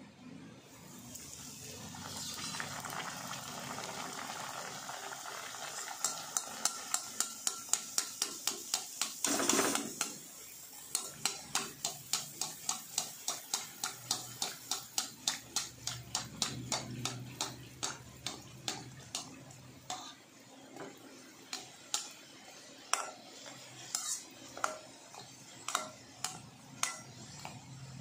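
Hot oil sizzling as a wheat poori deep-fries in a kadai, with a perforated skimmer tapping quickly against the poori and pan as it is pressed to puff: about three or four taps a second from about six seconds in, growing sparser in the second half.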